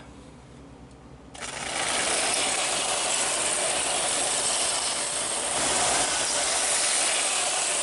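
1925 Märklin ECE 65 gauge 1 high-voltage locomotive starting up about a second and a half in, then running steadily: the even mechanical whir and rattle of its motor, gears and wheels on the metal track.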